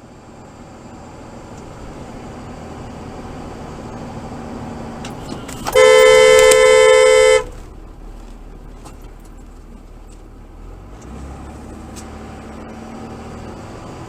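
Car horn sounding one long blast of about a second and a half, partway through, over the steady road and engine noise of a moving car.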